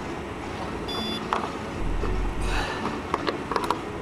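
Hands handling the plastic battery hatch and latch of a foam RC model plane: a rustle, then several sharp clicks near the end. A short electronic beep comes about a second in, over a low steady rumble.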